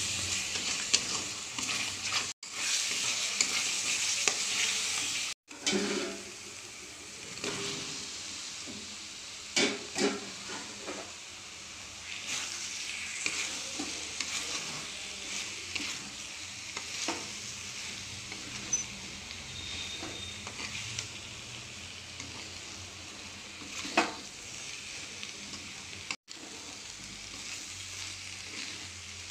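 Potato and soya-chunk curry sizzling in a pan while a spoon stirs it, with occasional knocks of the spoon against the pan. The sizzle is loudest for the first few seconds, then settles lower, and the sound cuts out briefly a few times.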